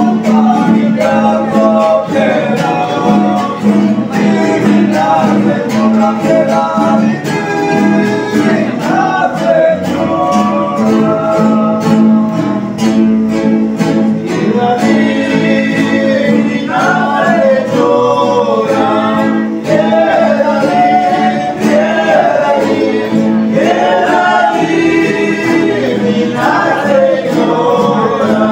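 Men's voices singing a tono de velorio, a traditional religious wake song, over strummed acoustic guitars. The phrases are long and drawn out.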